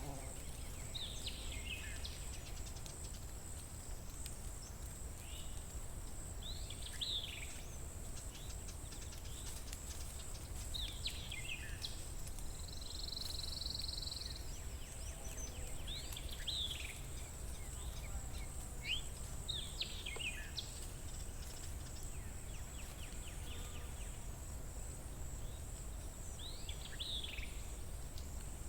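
A songbird singing short phrases that sweep downward, one every four to five seconds, over a steady thin high-pitched whine and a low outdoor rumble.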